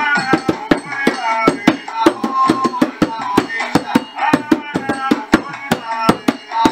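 Rope-tuned hand drum played with the bare palms in a quick, uneven rhythm of several strokes a second, with a melody of pitched notes over it.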